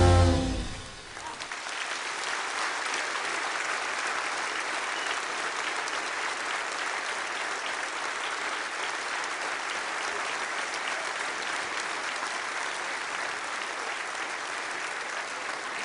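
Concert audience applauding steadily. The band's final brass chord cuts off in the first half-second, as the applause takes over.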